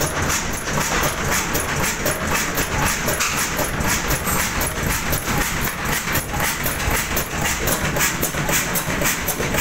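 Ruston & Hornsby Size 6 Class HR stationary diesel engine running, a steady, fast, even mechanical clatter over a low rumble.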